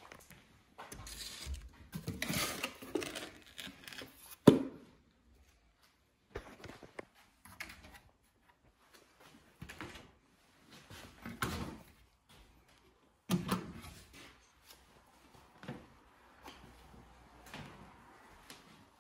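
Wooden cabinet doors being handled, with scuffs, rattles and clatter; a sharp knock about four and a half seconds in and another a little past halfway.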